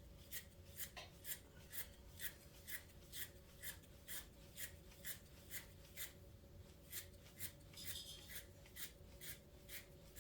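Coarse stripping knife raking through a dog's hard, blown coat in short rasping strokes, about two to three a second, pulling out loose dead hair.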